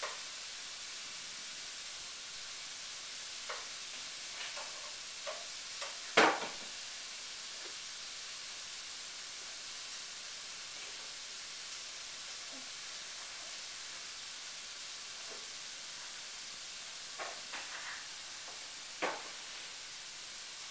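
Light knocks and clicks of jars being handled and set down on pantry shelves, over a steady hiss. The sharpest knock comes about six seconds in, another near the end.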